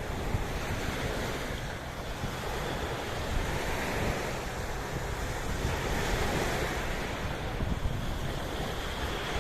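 Sea waves washing in a continuous surf, swelling and easing, with wind rumbling on the microphone.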